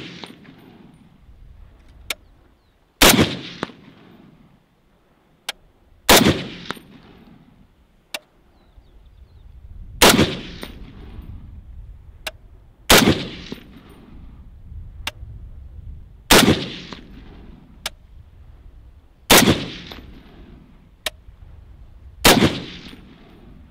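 MKE MPT-76 7.62×51mm NATO rifle firing seven slow, aimed semi-automatic shots about three seconds apart, each a sharp report with a short echoing tail. A faint sharp tick follows most shots about two seconds later.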